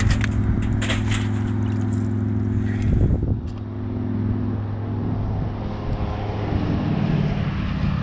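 Freeway traffic, a steady low engine drone from passing vehicles. A few sharp metal clicks in the first second come from the steel-and-wire crawfish trap being handled, and there is a brief knock about three seconds in.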